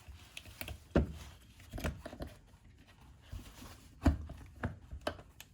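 Pump of a Graco Ultra handheld airless sprayer being worked up out of its saddle in the sprayer body: a series of sharp knocks and clunks, the loudest about a second in and about four seconds in, with lighter taps between.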